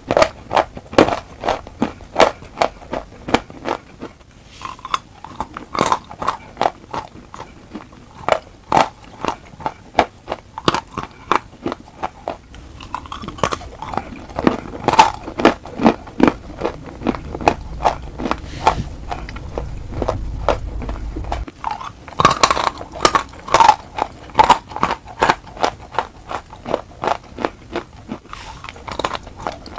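Dry crunching of chunks of chalk being bitten and chewed close to a clip-on microphone, about two to three sharp crunches a second with a short lull about four seconds in.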